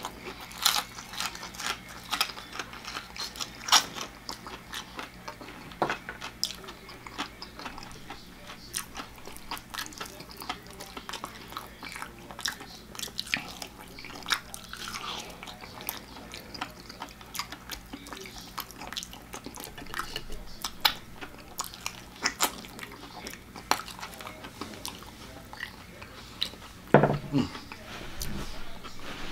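Close-up chewing of tender deep-fried chicken leg meat, with many small wet mouth clicks.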